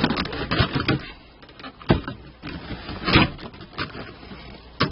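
Irregular knocks and clicks of plastic console trim being handled and pressed into place, with sharper knocks about two and three seconds in and near the end.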